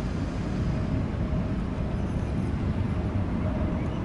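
Steady low rumble of distant jet airliners on final approach, with a faint steady tone above it.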